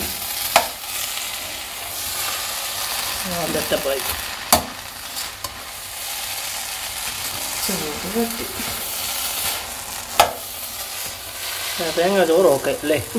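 A spatula stirring and turning coconut rice in a hot non-stick pot, with a steady sizzle and three sharp clacks of the spatula against the pot.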